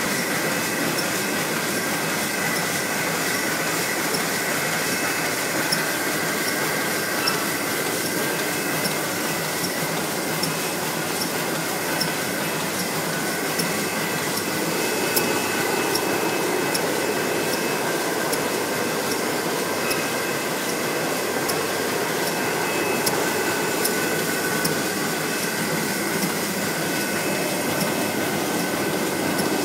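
Meccanotecnica Aster 2000 book-sewing machine running: a steady mechanical clatter with a sharper clack about every second and a half.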